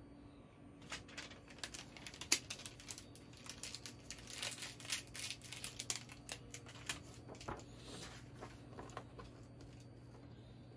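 Plastic packaging and a paper card crinkling and rustling as they are handled, in scattered small clicks that thin out toward the end. Under it, a faint steady hum from the resin printer's Z-axis motor lowering the build plate to its home position.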